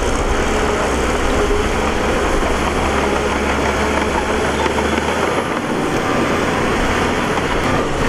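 Shantui crawler bulldozer's diesel engine running under load as the blade pushes a heap of loose soil, with a steady dense mechanical din; the low rumble eases about five and a half seconds in.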